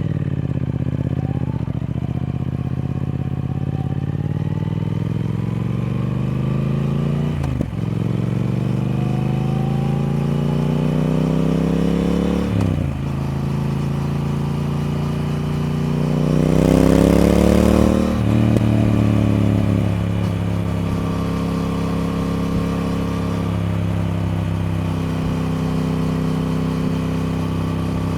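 Triumph Speed Twin's parallel-twin engine accelerating through the gears: the engine note climbs, drops sharply at an upshift about seven seconds in, climbs again, drops at a second upshift about five seconds later, and climbs once more before easing back to a steady cruise. A short rush of hiss comes at the top of the last climb.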